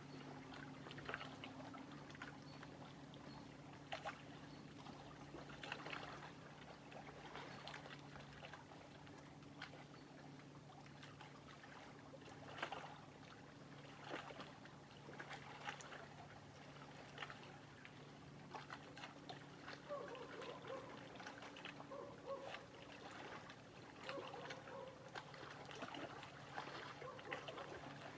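Small lake waves lapping close by, a faint run of irregular soft splashes and trickles over a steady low hum.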